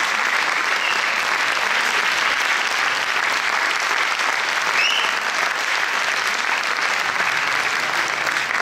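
Audience applauding steadily, dense clapping from a full theatre hall.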